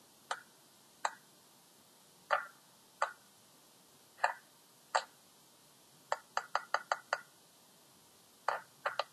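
Round silicone push-pop bubble fidget toy, its bubbles pressed one at a time by fingers, each giving a short soft pop. Pops come about one a second at first, then a quick run of about six a little past the middle, then a few more near the end.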